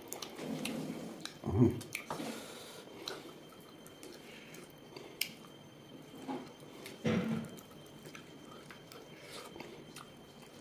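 A person chewing and eating pork close to the microphone, with irregular small clicks and two louder knocks, about one and a half seconds in and again about seven seconds in.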